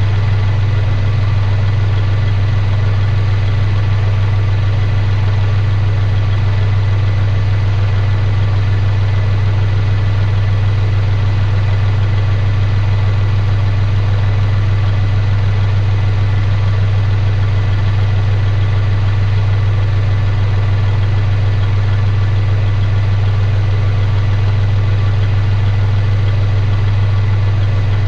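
Kubota compact tractor's diesel engine idling steadily with a constant low drone.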